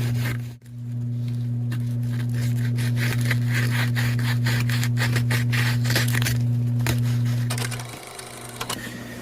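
Knife blade scraped in repeated quick strokes across a sharpening stone, over a loud, low, steady hum that stops about eight seconds in.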